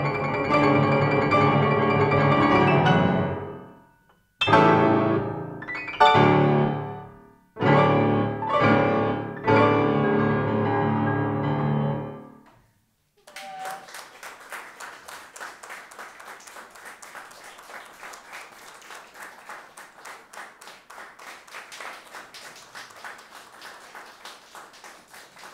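A grand piano played eight hands, four players at one keyboard, finishing a galop-march: a burst of full chordal playing, then a string of loud separate closing chords, each left to ring, the last dying away about twelve seconds in. About a second later applause starts and carries on, softer than the piano.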